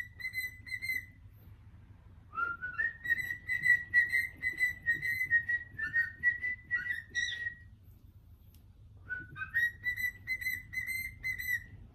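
Pet cockatiel whistling a tune in three warbling phrases on one high pitch: a short one ending about a second in, a long one from about two seconds to nearly eight, and another from about nine seconds on.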